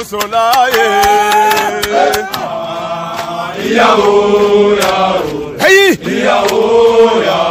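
Men's voices chanting a Senegalese soldiers' song, holding long sustained notes, with a quick swoop down and back up in pitch about six seconds in.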